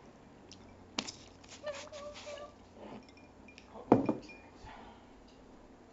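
Two sharp clinks of a small hard object, one about a second in and a louder one about four seconds in, with faint handling ticks between.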